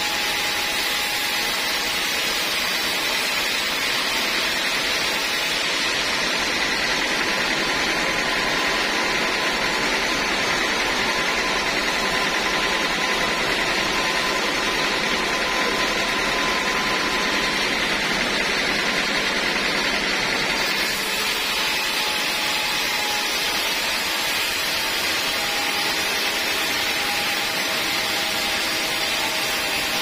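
Sawmill band saw running steadily as its blade rips through a teak log, a continuous loud machine noise. The sound brightens about twenty seconds in.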